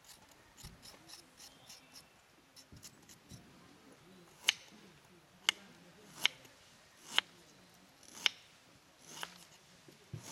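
A kitchen knife scraping the skin off a ginger root, faint quick strokes, then slicing the ginger on a wooden cutting board: from about halfway on, about seven sharp knocks of the blade hitting the board, roughly one a second.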